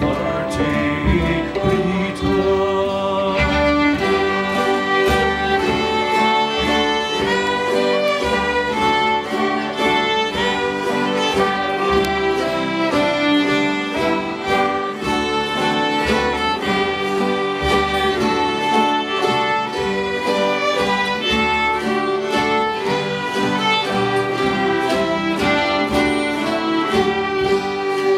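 Several fiddles playing a Celtic tune together, with acoustic guitar strumming along.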